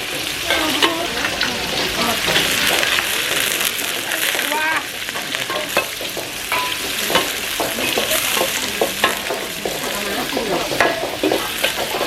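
Pad Thai being stir-fried in a pan over a very strong flame: a steady sizzle with frequent short clinks and scrapes of the utensil stirring against the pan.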